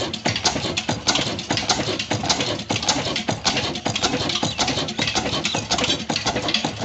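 Old 26 HP single-cylinder horizontal 'desi' black engine with a large flywheel running and driving a belt-driven chakki flour mill: a loud, dense clatter of sharp mechanical knocks over a steady noise.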